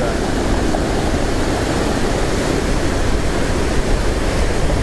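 Ocean surf breaking and washing over a rocky, pebbly shore: a steady rushing with no separate crashes standing out.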